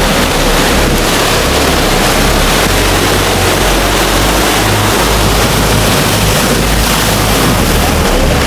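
Steady wash of surf on a rocky shore, with wind buffeting the microphone in low rumbling gusts.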